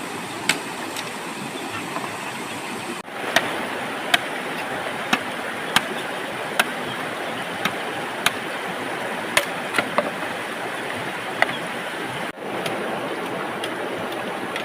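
Steady rushing noise with sharp clicks scattered through it about once a second; it cuts out briefly twice.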